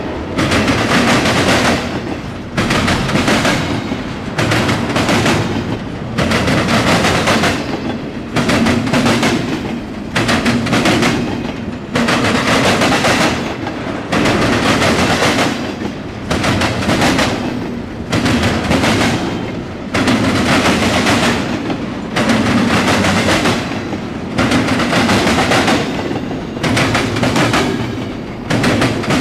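Double-stack intermodal freight cars rolling past close by, their wheels clacking over the track in loud bursts about every two seconds, over a steady rumble.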